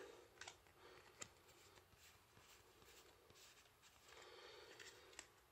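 Near silence, with a few faint ticks and a soft rustle of Yu-Gi-Oh trading cards being handled and squared into a stack, the rustle about four seconds in.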